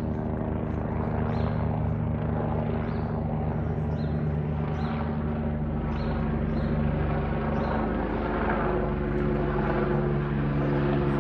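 Eurocopter EC145 helicopter circling overhead: the steady hum of its turbines and rotor over a low, even beat of the rotor blades.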